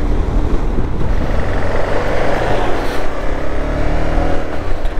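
KTM 390 Adventure's single-cylinder engine running steadily under way, with road and wind noise around it.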